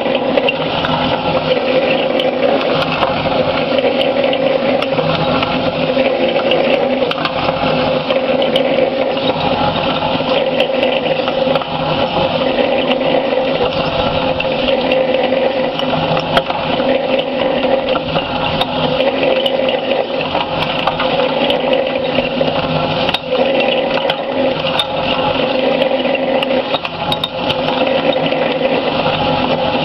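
Cement mixer drum turning as a ball mill: a charge of heavy steel balls, nuts and rods tumbling with incinerated chips, a steady metallic clatter and rattle of many small impacts as the chips are ground.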